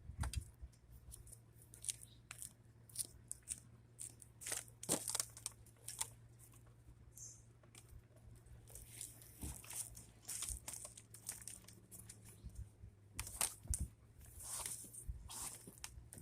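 Irregular rustling, crunching and light knocks of handling and moving about, over a faint steady low hum.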